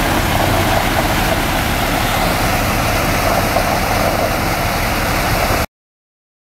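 International 4900 water truck's engine running steadily while water gushes from the rear spray heads onto gravel, a steady rushing splash over the engine hum. The sound cuts off abruptly about five and a half seconds in.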